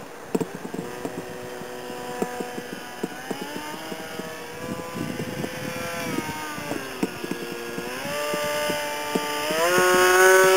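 RC model plane's motor and propeller whining overhead, its pitch dipping and rising with the throttle, then climbing in steps and getting louder near the end. Scattered short clicks throughout.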